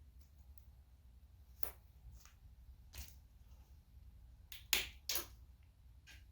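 Small cast-resin buttons snapping and clicking as they are handled and popped out of a silicone mold: about five short sharp clicks, the loudest two close together near the end.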